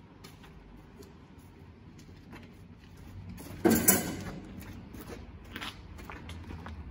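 Faint handling clicks and rustling, with one sudden loud knock or clatter about halfway through that rings briefly before dying away.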